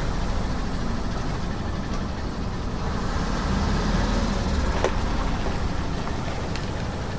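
Car engine running at low speed, a steady low rumble, with a single sharp crack about five seconds in and a fainter one soon after.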